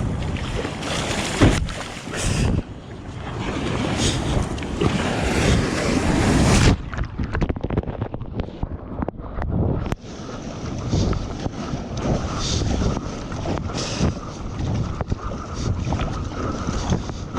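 Wind buffeting the microphone over water sloshing and splashing around a sea kayak, with surges of splashing coming about every second and a half in the second half.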